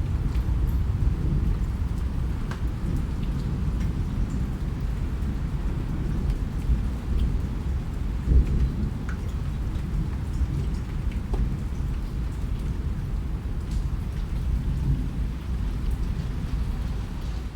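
Steady rain falling, with a deep, continuous low rumble underneath and scattered sharp drip ticks on top, swelling briefly about eight seconds in.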